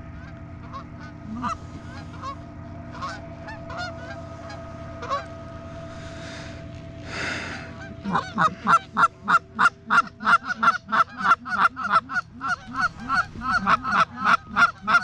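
Canada goose honking, scattered at first and then, from about eight seconds in, loud rapid honking and clucking at about two to three calls a second. A brief rush of noise comes just before the honking picks up.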